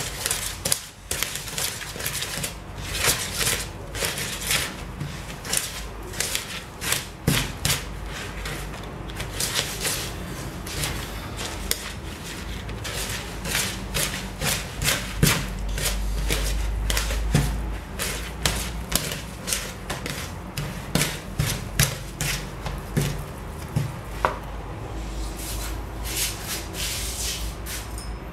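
Wooden spoon beating and scraping margarine and sugar in a plastic mixing bowl, a fast, irregular run of knocks and rubs: creaming the fat and sugar for a cake batter.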